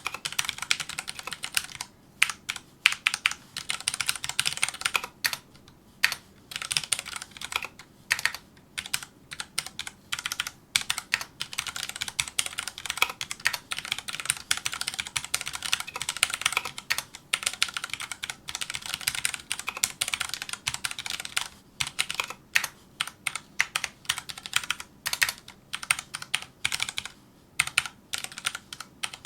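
Touch-typing on a Filco Majestouch2 mechanical keyboard with Cherry MX Brown switches: fast runs of key clicks broken by brief pauses between words and lines.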